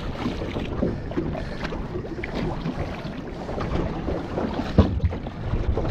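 Wind on the microphone and water moving against a boat, with scattered light knocks and handling noises and one sharper knock near the end.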